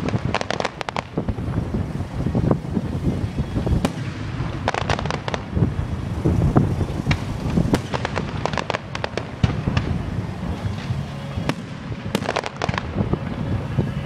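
Aerial fireworks going off: low booms under repeated volleys of sharp cracks and crackles that come in clusters throughout.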